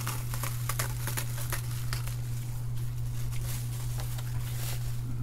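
Bubble wrap being handled and folded around a panel, rustling and crinkling in a dense run of small irregular crackles, over a steady low hum.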